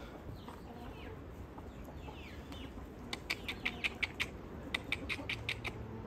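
Birds in a farmyard chicken flock chirping: a few faint calls, then a quick run of short, high chirps, several a second, for about two seconds past the middle.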